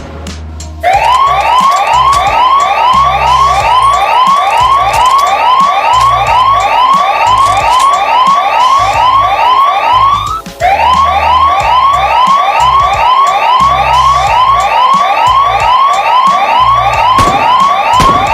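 Electronic siren in a fast yelp. Its pitch rises quickly in each sweep, nearly three sweeps a second, starting about a second in. There is a brief break about halfway through. A low pulsing rhythm runs beneath it.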